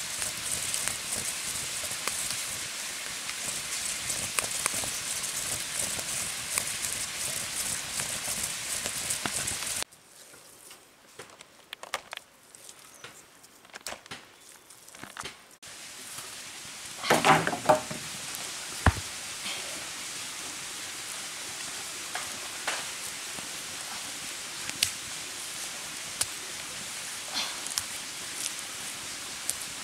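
Wood fire crackling and hissing, with many small snaps, for about ten seconds. It then cuts off sharply to quieter outdoor sound with scattered light knocks, a brief louder pitched sound a few seconds later, and a few faint clicks after that.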